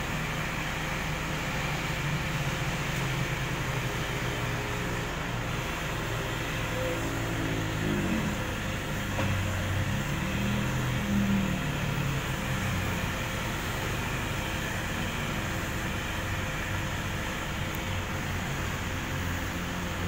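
Electric heat gun blowing steadily, a hot-air blower used to heat-shrink window tint film onto a car windshield. A low engine hum rises and falls about eight to twelve seconds in.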